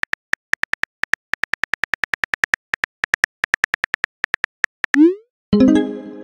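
Phone keyboard typing clicks, a rapid uneven patter of short high clicks, several a second. About five seconds in a short rising whoosh sounds as the text message is sent, and right after it a ringing chord-like tone fades away.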